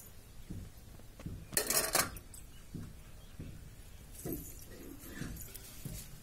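A short metallic jingle lasting about half a second, a second and a half in, among scattered soft low knocks.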